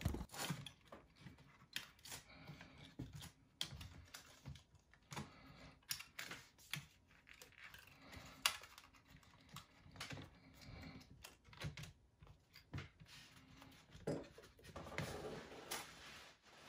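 Faint, irregular clicks and light taps of a laptop logic board and its cables being handled and pressed into an aluminium MacBook Pro case, with one sharper tap about eight and a half seconds in.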